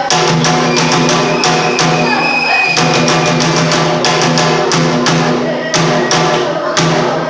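Bitchū kagura accompaniment: quick, uneven drum strikes over a steady low pitched tone that breaks off briefly about once a second.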